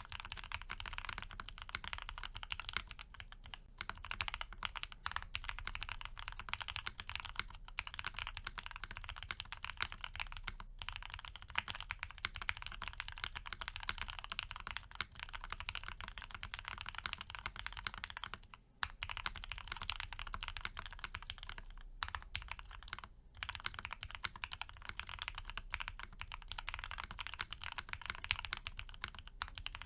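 Fast, continuous typing on a Piggy 60 custom mechanical keyboard with Gateron FC linear switches, lubed with Krytox 205g0 and filmed, on a polycarbonate plate with CRP APL keycaps. A dense run of keystrokes with a few brief pauses along the way.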